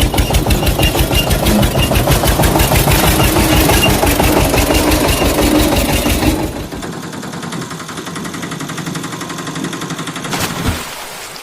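A heavy vehicle's engine chugging in rapid, even pulses, loud at first and then dropping to a quieter, faster putter about six and a half seconds in, with a brief louder burst near the end.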